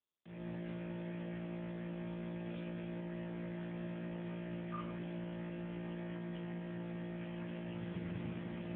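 A bee lying on its back buzzing: a steady, even hum with no change in pitch.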